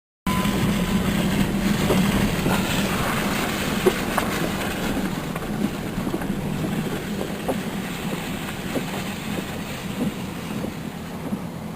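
A steady low hum from a running vehicle, with scattered rattles and clicks; it cuts in suddenly just after the start.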